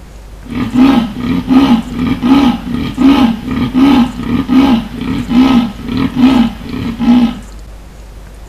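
Adult male Amur leopard giving its rasping sawing roar: a run of about ten evenly spaced strokes, a little more than one a second, starting about half a second in and stopping about seven seconds in.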